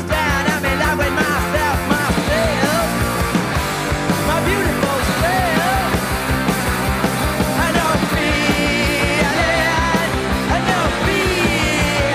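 Punk rock song at full volume: electric guitar, bass guitar and drums with a steady beat, and a shouted lead vocal.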